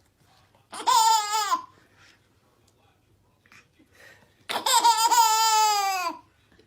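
A young child squealing twice in long, high-pitched cries, the second longer and falling in pitch at its end.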